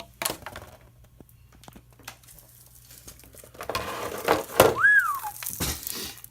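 Plastic rustling and scraping with sharp clicks as the RC truck's plastic body shell is slid off its chassis. It is faint at first and gets louder after about three and a half seconds, with a short rising-and-falling squeak about five seconds in.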